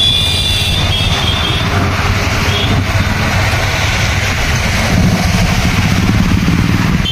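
Motor vehicle engine running steadily at low road speed, a low rumble with road and wind noise. A brief high-pitched tone sounds in the first second or so.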